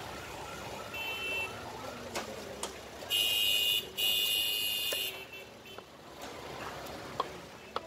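Street traffic with vehicle horns honking: two long blasts about three and four seconds in, a shorter honk about a second in. A few sharp knife taps on the wooden chopping block near the end.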